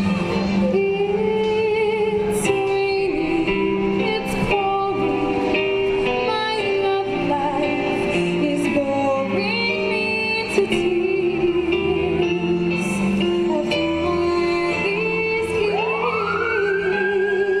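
A woman singing a slow, held melody with vibrato into a microphone over instrumental accompaniment, amplified through a PA speaker. Near the end a gliding tone rises in the accompaniment.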